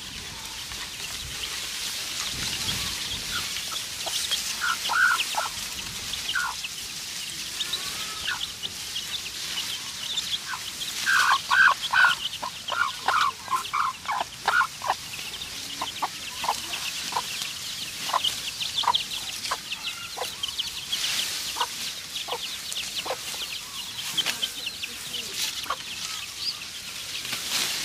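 A chicken clucking: a few short calls about five seconds in, a quick run of clucks between about ten and fifteen seconds in, then scattered single clucks, over a steady high hiss.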